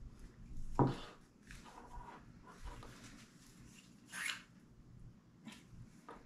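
Handling noises while a knot is tied by hand: a knock about a second in, then a short swish a little after four seconds, with faint rustling between.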